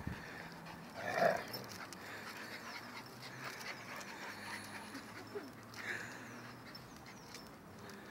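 Dogs play-fighting, with a short, louder dog vocal sound about a second in and a fainter one near six seconds, over a faint steady background.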